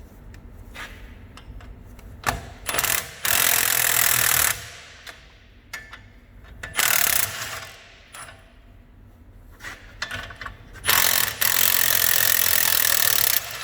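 Cordless impact wrench running in three bursts, a short one, a shorter one, then a longer one near the end, backing off the spring compressor's screws to release the load on the coil spring. Knocks and clicks from handling the compressor come between the bursts.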